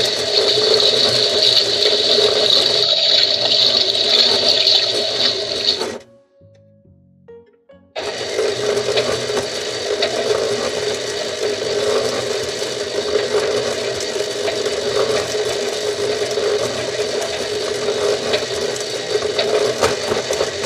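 Minnie Mouse toy washing machine running its wash-and-spin cycle: a steady, loud whirring that drops out for about two seconds near the six-second mark and then resumes unchanged.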